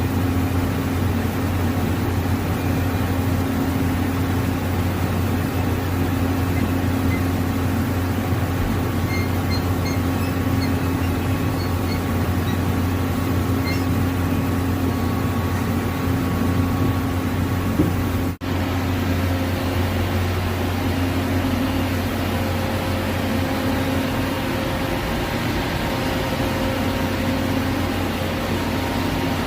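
CNC lathe running with a steady mechanical hum, its sound dropping out abruptly for an instant about eighteen seconds in.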